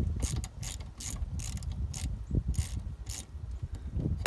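Hand ratchet with a half-inch socket clicking in repeated short rasps as it is swung back and forth, backing off the wiper-arm retaining nut. The rasps come in quick runs, with a gap of about a second a little past the middle.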